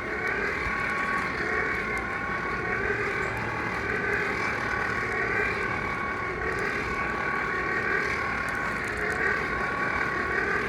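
Coal forge air blower running steadily, forcing air into the coal fire: an even, pitched whine over a rushing hum.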